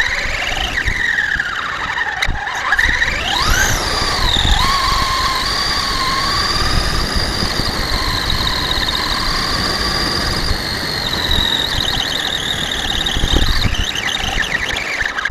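Electric motor and drivetrain of a Traxxas Stampede RC truck whining, over a low rumble. The pitch dips at first, then climbs sharply about three seconds in as the truck speeds up. It holds a steady high whine for several seconds, then wavers again near the end.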